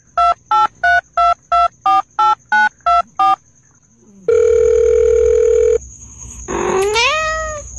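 Phone keypad beeps as a sound effect: about ten quick tones at roughly three a second, their pitches stepping slightly up and down. After a pause comes one long steady beep of about a second and a half, then a short rising call near the end.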